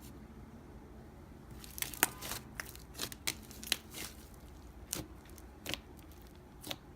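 Slime being handled: an irregular run of sharp clicks and crackling pops, starting a couple of seconds in.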